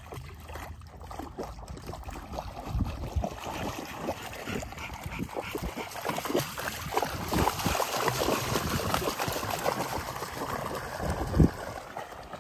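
A dog wading through shallow lake water, its legs splashing irregularly with each step, with one louder thump near the end.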